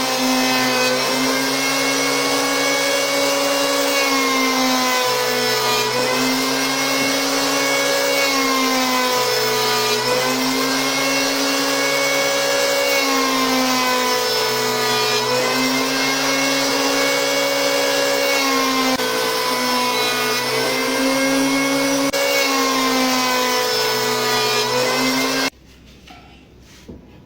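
Electric power planer, mounted as a jointer, running with a steady high motor whine whose pitch sags briefly every few seconds. It cuts off suddenly near the end, leaving a few faint clicks.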